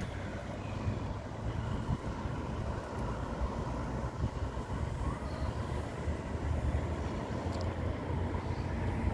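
Road traffic: cars driving past with a steady low rumble.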